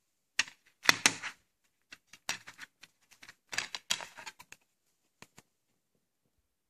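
Plastic clicks and snaps of a disc being pressed off the centre hub of a plastic DVD case and lifted out, the loudest snaps about a second in, then a patter of lighter clicks.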